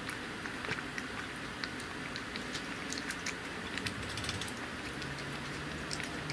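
A cat eating a jelly treat with shredded chicken breast from a dish: quick, irregular wet clicks and smacks of chewing and licking.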